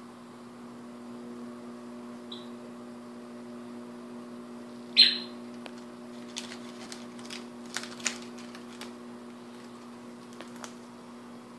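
Cockatoo foraging at a toy: a faint short chirp, then about five seconds in a short, loud squawk that falls in pitch, followed by scattered sharp clicks and crunches as its beak works the corn husks and wooden blocks. A steady low hum runs underneath.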